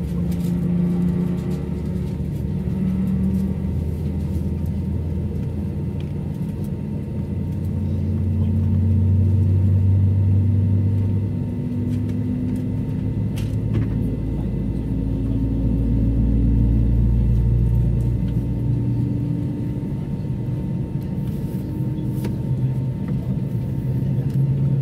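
Cabin noise of an Airbus A319-100 taxiing, its two IAE V2524-A5 turbofan engines running near idle: a steady low hum whose pitch slowly rises and falls, swelling twice in loudness.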